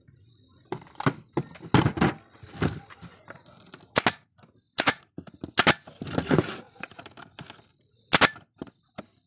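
Pneumatic brad nailer firing brads into the wooden box: a series of sharp snaps at irregular intervals, some in quick pairs.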